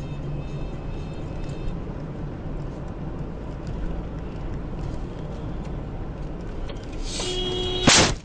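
Steady in-car road and engine noise from a car driving on a snowy road, then near the end a brief steady tone followed by a sudden loud collision impact as the car crashes, cracking its windshield.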